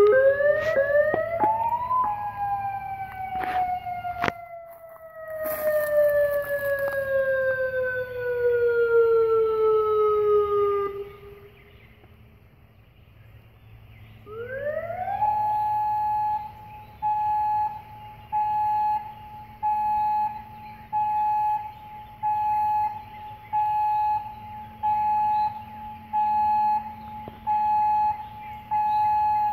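Synthesized electronic siren emulating a Federal Signal Modulator/UltraVoice warning siren. An alternate wail slides slowly down in pitch and fades out about eleven seconds in. After a short pause a tone rises to a steady pitch and then pulses on and off about once a second: the pulsed steady signal.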